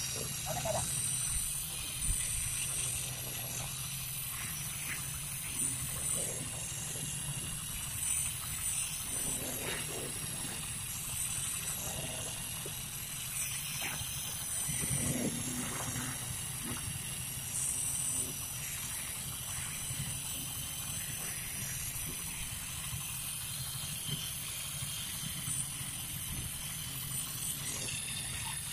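Handheld electric concrete needle vibrator running steadily while compacting freshly poured concrete in a plinth beam: a high motor whine over a low hum, shifting a little in pitch now and then as the poker is worked in and out of the concrete.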